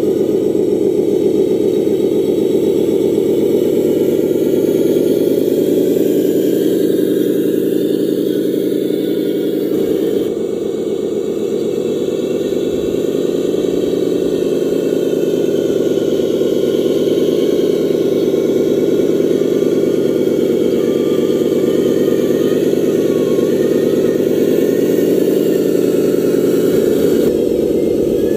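Radio-controlled construction vehicle's engine sound running steadily, with small rises and falls in pitch and a slight dip in level about ten seconds in.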